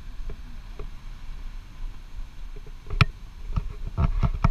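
Steady low rumble of wind on the microphone, then a run of sharp footsteps on a dirt trail from about three seconds in.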